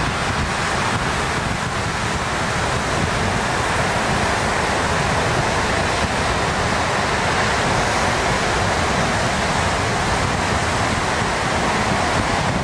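Steady rush of breaking ocean surf mixed with wind on the microphone.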